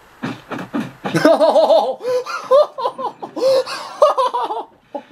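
A man laughing hard: a long run of loud 'ha-ha' belly laughter in quick pulses, starting with breathy bursts and growing louder about a second in.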